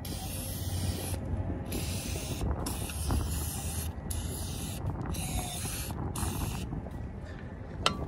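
Aerosol can of Fluid Film rust protection spraying through its thin extension straw in about five hissing bursts of roughly a second each, with a sharp click near the end.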